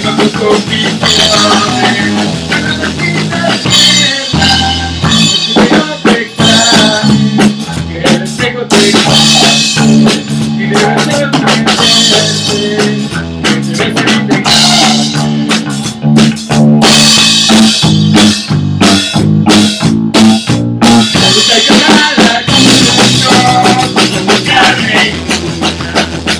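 Loud live rock playing from an electric bass and a drum kit, an instrumental passage without singing: steady low bass notes under busy drumming.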